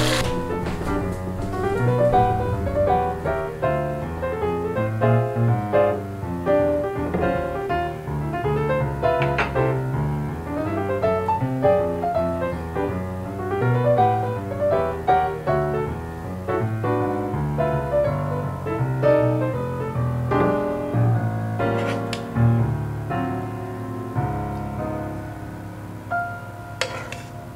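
Background piano music: a brisk stream of short notes over a steady bass line.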